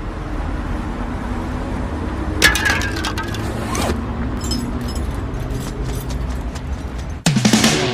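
Street ambience with a steady low rumble, broken by a few sharp cracks and scrapes about two and a half seconds in. Near the end, rock music starts suddenly and loudly.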